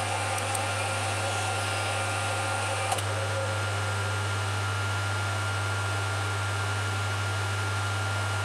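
Electric motor driving the wheel-cutting spindle on a Schaublin 102 lathe, running steadily with a low hum and a thin high whine. A single click about three seconds in.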